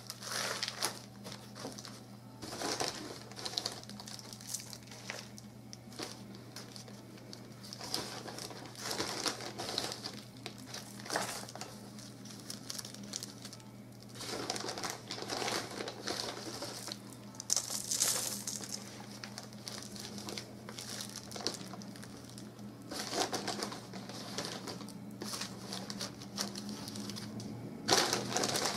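Plastic bag crinkling and rustling in irregular bursts as it is handled around a birch branch, together with potting soil being scooped and poured into a bowl. A steady low hum runs underneath.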